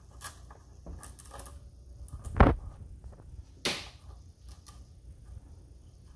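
Scattered light clicks and knocks of plastic cable-organizing clips and cables being handled against a metal TV wall mount, with a sharp knock about two and a half seconds in and another click about a second later.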